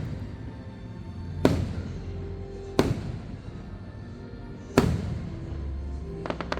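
Aerial fireworks bursting: three loud booms a second or two apart, then a quick run of small crackling pops near the end, with music playing underneath.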